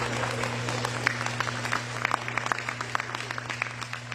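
Audience applauding with scattered hand claps that thin out and fade.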